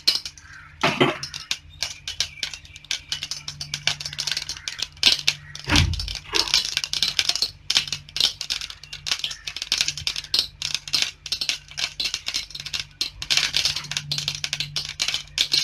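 Mustard seeds spluttering in hot oil in a stainless-steel pot: a dense, irregular run of quick pops and crackles, with a steady low hum beneath. The seeds are bursting open, the sign that the oil is hot enough for tempering.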